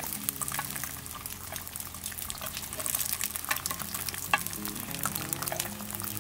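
Num krouk batter sizzling and crackling in the hot oiled cups of a clay mold pan, with a metal spoon scraping as the cooked cakes are lifted out.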